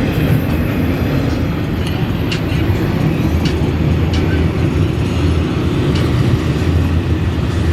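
CSX intermodal freight train rolling past: a steady low rumble with a few light clacks.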